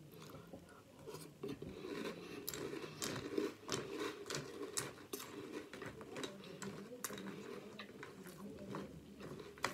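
A person chewing a mouthful of crunchy breakfast cereal, with many irregular soft crunches.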